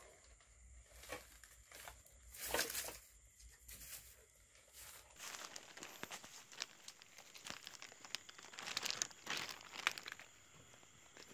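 A plastic carrier bag crinkling and rustling in irregular bursts as it is carried, with steps crunching over a debris-strewn floor.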